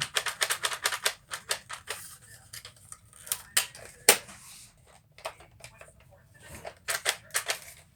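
Plastic toy blaster parts and packaging being handled and unpacked: clusters of quick sharp clicks and rattles, with a louder knock about four seconds in.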